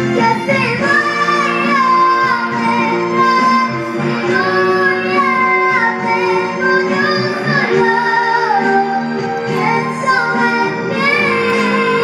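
A young girl singing a ballad into a microphone, amplified, over instrumental accompaniment. She holds long notes with vibrato.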